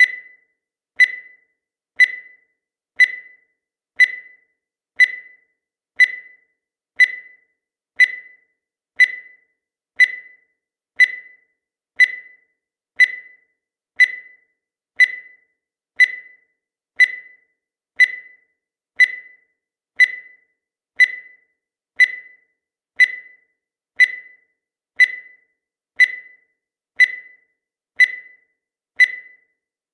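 Countdown timer sound effect: a short, high electronic beep once every second, each fading away quickly.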